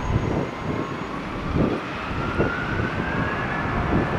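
Airbus A321's twin jet engines spooling up to takeoff thrust as it starts its takeoff roll: a whine slowly rising in pitch over a loud, uneven rumble.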